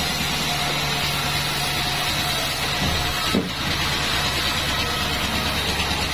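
Sawmill bandsaw machinery running steadily with an engine-like hum, and one short knock about three and a half seconds in.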